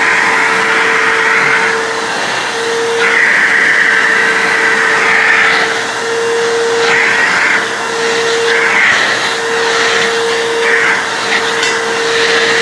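Backpack vacuum cleaner running with a steady motor whine. Its suction hiss swells and fades every second or two as the nozzle is worked over the ceiling fan to pull off built-up dust.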